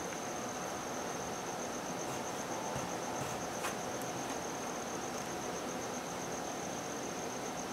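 An insect trilling steadily in one high, finely pulsing tone over a steady hiss, with a faint click about three and a half seconds in.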